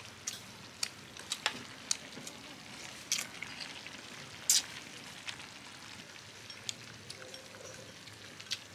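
Scattered light clicks and taps of utensils and dishes during a meal, about a dozen of them, the sharpest about four and a half seconds in, over a faint steady hiss.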